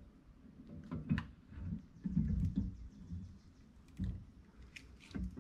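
Light clicks and taps of metal on metal, with a cluster of low knocks and rubbing about two seconds in: engine main bearing shells being handled and seated into a VW Type 1 crankcase half.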